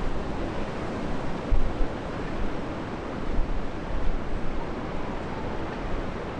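Strong storm wind rushing and buffeting the microphone, a steady roar with a heavier gust thump about one and a half seconds in.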